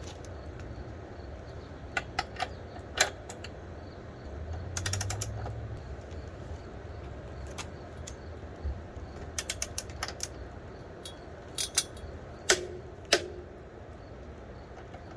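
Ratchet wrench tightening a motorcycle's rear axle nut to torque, giving scattered sharp metallic clicks. There is a quick run of ratcheting clicks about five seconds in, and two louder single clicks near the end.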